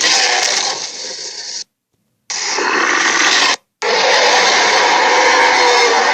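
Sound-effect Acrocanthosaurus roars: three rough, raspy growls separated by short silences. The first is loudest at its start and fades, the second is short, and the third is the longest and steady, each starting and stopping abruptly.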